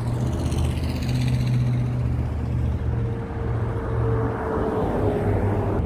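A car driving, with a steady low engine hum and road noise.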